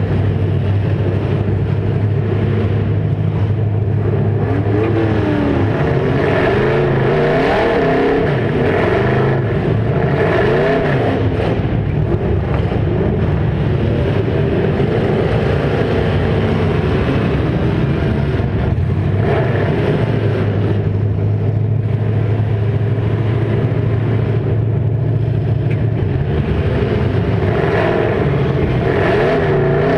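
Demolition derby car engines running hard and revving, their pitch rising and falling repeatedly, with a steadier drone in between.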